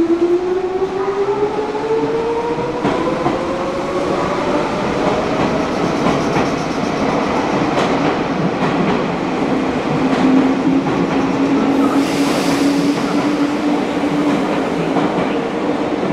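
Meitetsu electric train pulling out of an underground station, its motor whine rising steadily in pitch as it accelerates, with clacks of wheels over rail joints. A steady lower drone takes over in the second half, and there is a brief hiss a little after the middle.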